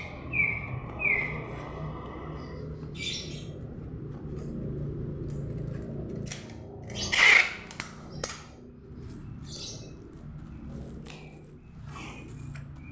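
A bird chirps a short run of repeated notes at the start over a low steady hum. About seven seconds in there is one loud, brief rasp of handling noise, with a few lighter clicks around it.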